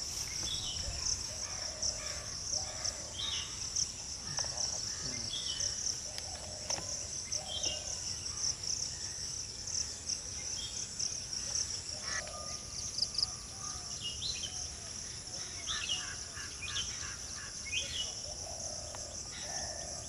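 Steady high trilling of crickets, with songbirds calling over it in short whistled notes every second or two, the calls coming thicker in the second half.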